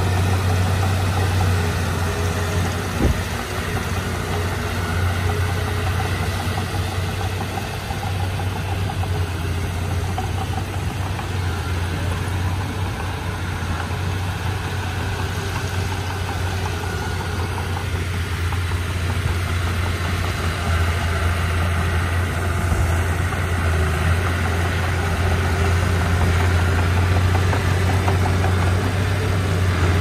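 Komatsu D31P crawler bulldozer's diesel engine running steadily under load, with one sharp knock about three seconds in.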